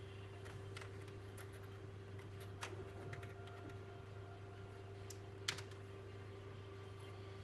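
Scattered, irregular clicks of computer keys being typed, with one sharper click about five and a half seconds in, over a steady low hum.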